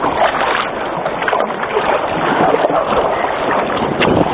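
Sea water splashing and sloshing right at a kayak-mounted camera near the waterline as the kayak is paddled, in irregular splashes, with a sharp click about four seconds in.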